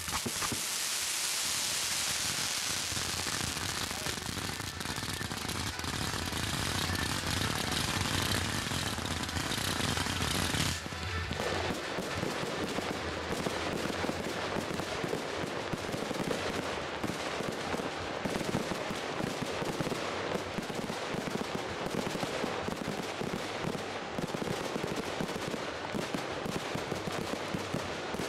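Fireworks going off: a dense hissing rush for about the first ten seconds, then a fast, continuous run of crackling bangs like a barrage.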